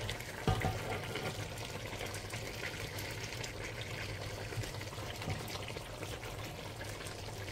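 A pan of stew simmering on the hob: a steady watery hiss with faint crackles, and one knock about half a second in.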